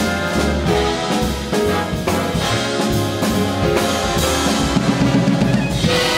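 Jazz big band playing an ensemble passage: trumpets, trombones and saxophones sounding together over bass and drums.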